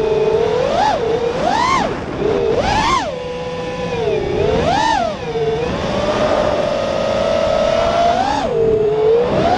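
FPV quadcopter's brushless motors and propellers whining, the pitch swooping up and down with each throttle punch about five times, then holding steady for a couple of seconds before dropping near the end.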